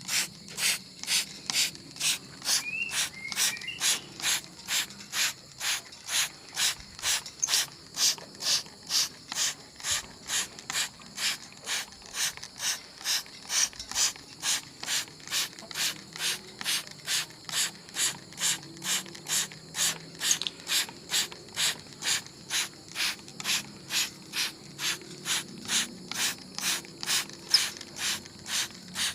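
Hand trigger spray bottle misting a bird for its bath: short hissing squirts with the click of the trigger, about two a second in a steady rhythm.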